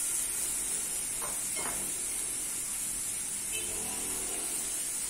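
Chopped onions and freshly added grated carrot sizzling in hot oil in a frying pan, a steady hiss.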